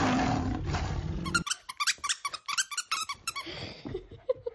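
Squeaker in a plush dog toy squeaking rapidly, about six short squeaks a second for about two seconds, as a West Highland White Terrier bites at it. The squeaks follow a loud burst of rustling in the first second or so.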